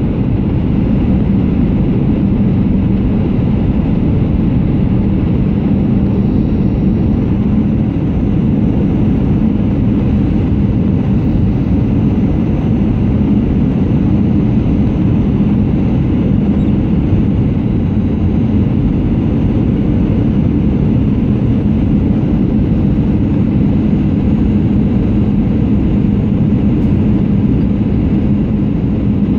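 Steady cabin noise of an Airbus A320-211 on final approach, heard inside the cabin: the low rumble of its CFM56 engines and the rush of airflow, with a steady low hum.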